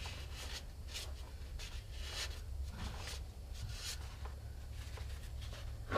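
Cloth shop towel rubbing and wiping around the oil drain plug on a truck's oil pan, cleaning dirt away from the plug: a series of short, irregular scuffing strokes over a low steady hum.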